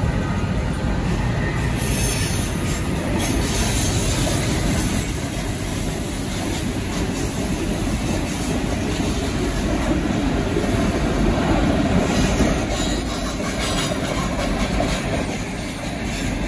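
Long container freight train rolling along the track, its wagons' wheels on the rails making a steady running noise, heard from a moving car driving alongside.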